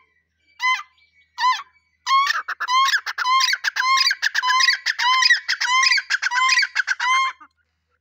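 Grey francolin calling: a few single, rising calls, then from about two seconds in a loud, rapid run of repeated calls that stops abruptly shortly before the end.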